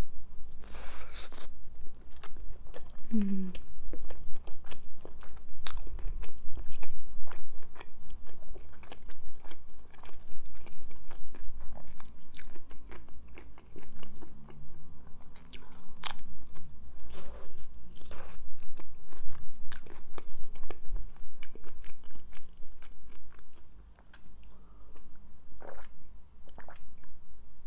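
Close-up mouth sounds of a person biting and chewing a shawarma wrap: crackly bites through the flatbread, with wet chewing clicks. Near the end come a few swallows of water.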